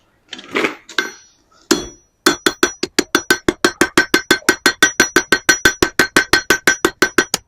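A blacksmith's hammer striking hot iron on an anvil, drawing out the end of the snail's body to a point. After a couple of ringing clinks, it turns into a fast, even run of blows, about six or seven a second, each with a bright anvil ring.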